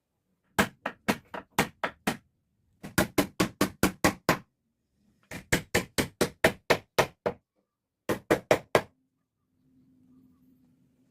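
Hammer blows on wood, in four quick runs of about five strokes a second with short pauses between, typical of nailing planks in wooden boat building.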